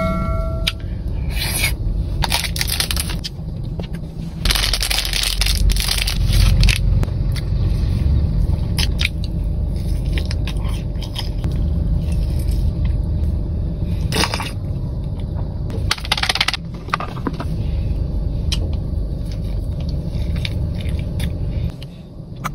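Close-up eating sounds: snack wrappers crinkling and food crunching in irregular bursts.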